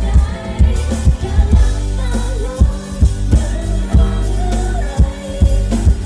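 Live pop band playing through a concert PA: a singer's voice over heavy bass, electric guitar and keyboard, with a steady drum beat of about two hits a second.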